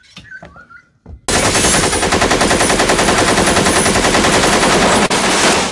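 Homemade chain rock crusher driven by an angle grinder, switched on and running at full speed: a loud, rapid, even rattle of the chain inside the steel housing over the grinder's motor. It starts abruptly about a second in and cuts off near the end.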